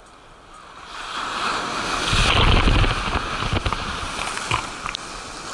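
Ocean wave breaking on the shore: the surf swells from quiet to a heavy crash about two to three seconds in, then keeps washing loudly.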